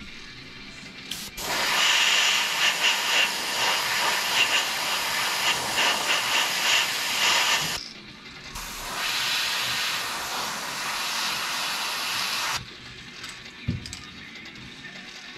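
Handheld airbrush spraying paint in two long hisses: the first lasts about six seconds with a slightly fluttering level, and after a brief pause a second, somewhat quieter one lasts about four seconds.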